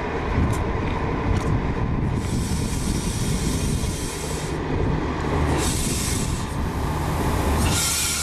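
OSE intercity diesel multiple unit pulling into the station, its engine rumbling steadily. Stretches of loud hissing come and go over the low rumble.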